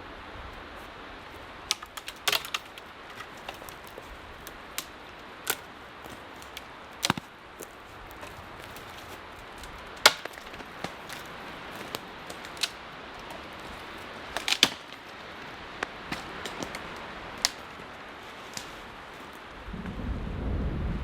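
Irregular sharp clicks and knocks from tarp-shelter gear being handled, over a steady hiss of wind. A low rumble of wind comes in near the end.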